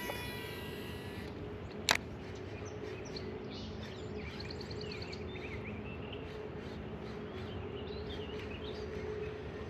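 Small birds chirping in short scattered calls over a steady low hum, with one sharp click about two seconds in.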